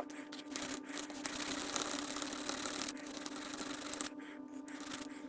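Bench grinder running with a steady hum while its wire wheel scrubs a metal part clean in a hiss that grows stronger about a second in and eases off about four seconds in.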